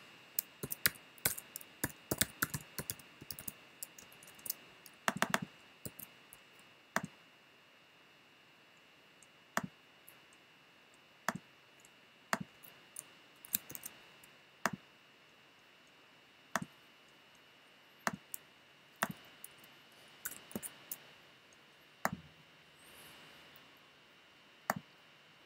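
Computer keyboard typing and mouse clicks: quick runs of keystrokes in the first few seconds, then single clicks every second or two.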